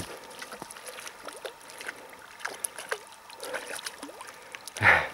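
Small splashes of a hooked grayling thrashing at the river's surface as it is reeled in toward the bank.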